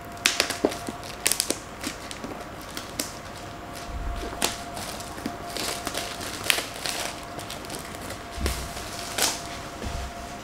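Clear plastic wrapping crinkling and crackling as it is pulled off a cardboard box, in irregular bursts of sharp crackles.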